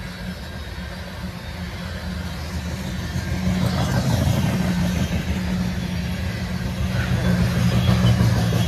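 Loaded coal train cars rolling past: a steady rumble of steel wheels on rail that gets louder about three seconds in.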